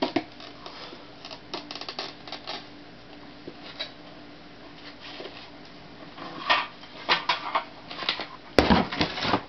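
Irregular clicking and crackling of a hot plastic tail light being handled with oven mitts, growing busier in the second half, with a heavy thump about eight and a half seconds in.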